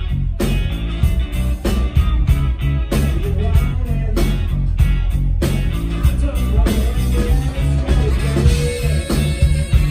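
Live rock band playing: electric guitars over a heavy bass line and a steady drum beat.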